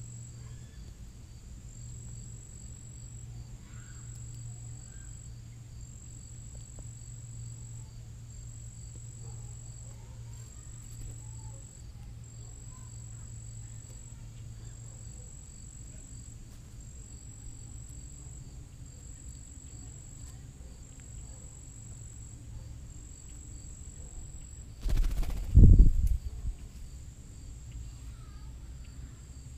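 Insects chirping steadily in a high, evenly pulsing trill over a low hum. Near the end comes a loud, low thump close to the microphone.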